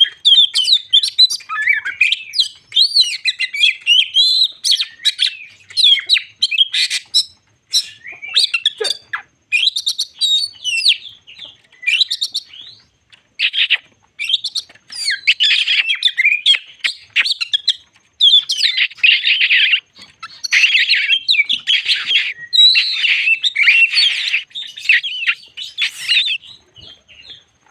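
Oriental magpie-robin (kacer) in full song, pouring out a long, fast stream of varied whistles and chattering phrases with only short breaks. In the second half the phrases turn denser and harsher.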